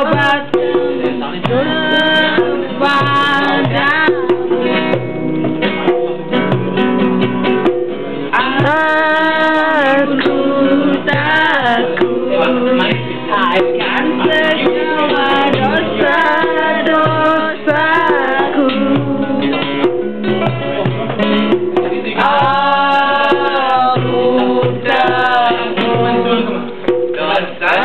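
Two acoustic guitars strummed together with voices singing over them.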